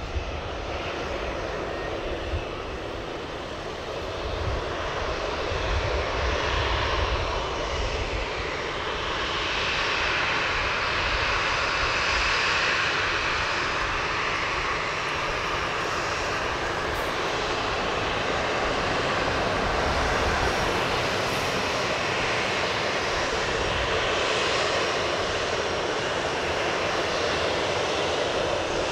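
Boeing 737-800's twin CFM56-7B turbofan engines running at taxi power, a steady jet rumble and whine that grows louder over the first several seconds as the airliner taxis closer, with the whine strongest near the middle.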